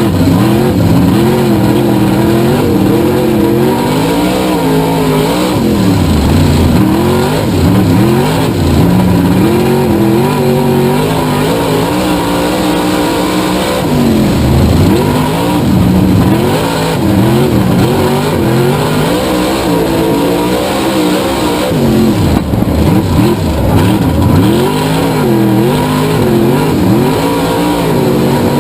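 Race car engines running hard around a dirt oval, their pitch rising and falling again and again as they speed up and slow down, with several swoops where cars sweep by.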